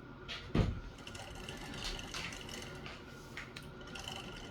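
Small metal clicks and light scraping as a revolver's lock indicator and its tiny spring are worked into place in the frame with a pick, with one sharper knock about half a second in.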